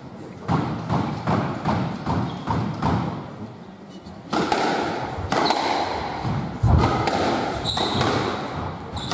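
Squash rally: the ball struck by rackets and smacking off the court walls and floor, a quick series of sharp knocks, with one heavier thud about two-thirds of the way through.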